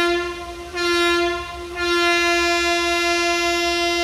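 Electric locomotive's horn, a WCAM-2, sounding three blasts: two short toots, then a long held blast at one steady pitch.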